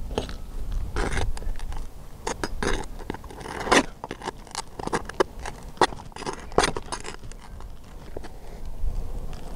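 A metal pry bar scraping and clicking under stiff asphalt shingles as an old shingle is worked loose from a nail still holding it. The scrapes are irregular, with a few sharper snaps.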